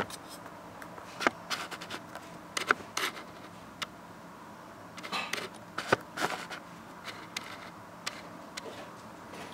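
Irregular, scattered light clicks and rustles of handling as a wrist and hand move close to the microphone, over a low steady room background.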